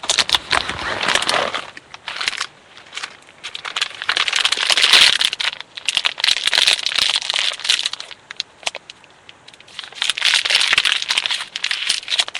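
Crinkling and rustling of thin material handled close to the microphone, in several spells a second or two long.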